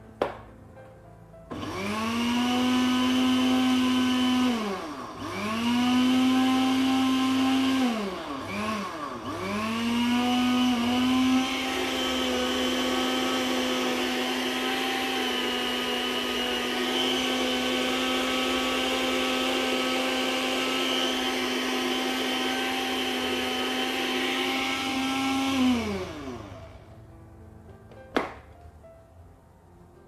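IDEALIFE 300-watt blender motor grinding granulated sugar into powdered sugar in its small grinder jar: two short runs and a brief pulse, each dropping in pitch as the motor spins down, then one long steady run that winds down near the end. A single click follows.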